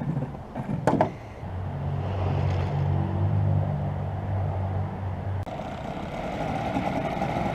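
An engine running steadily at a low hum, with an abrupt change in the background sound about five seconds in.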